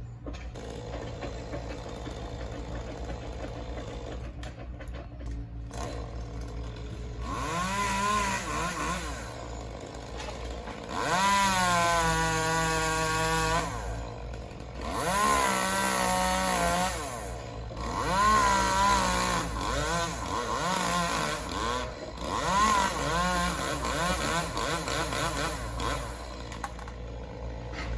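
Chainsaw revving up in several bursts of one to three seconds, held at full speed and dropping back between them, as a tree is cut down.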